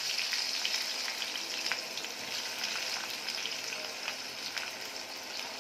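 Freshly added sliced onions sizzling in hot oil in a kadai: a steady frying hiss dotted with small crackles, easing slowly.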